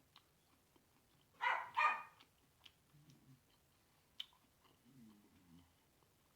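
Mouth sounds of eating: scattered lip smacks and clicks, with two loud, short, pitched sounds close together about a second and a half in, and a faint low hum twice later on.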